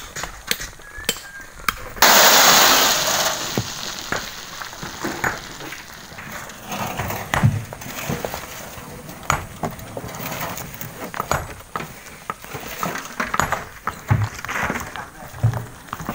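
Loose rock and gravel tumbling down a rocky slope. A sudden loud rushing crash about two seconds in fades over a couple of seconds, followed by scattered knocks and clinks of stones.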